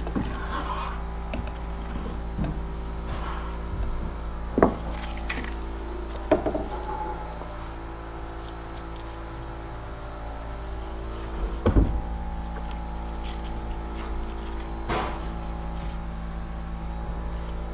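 Steady hum with a few sharp knocks and clatters as a resin pot and roller are handled against a timber rill being fibreglassed. The loudest knock comes about twelve seconds in.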